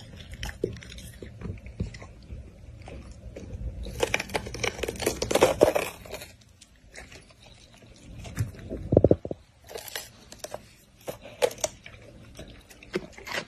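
Golden retriever biting into and chewing a raw green bell pepper: crisp crunching and tearing with sharp wet clicks, busiest about four to six seconds in.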